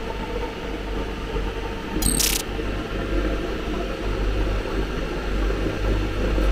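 CNC machine's steady low hum, with one short, bright metallic clink about two seconds in.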